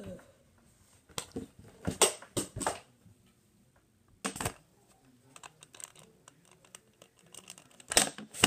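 Handling noise as boxing gloves are pulled on: scattered knocks, clicks and rustles close to the microphone, a few sharp ones early, a run of light clicks later and a loud knock near the end.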